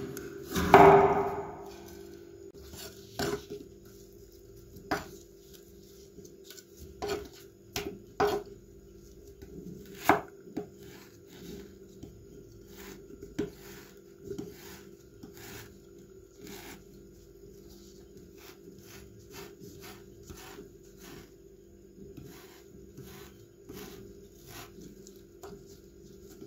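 Chef's knife cutting raw venison on a wooden cutting board: irregular knocks of the blade against the board, the loudest about a second in, fainter and sparser later. A steady low hum runs underneath.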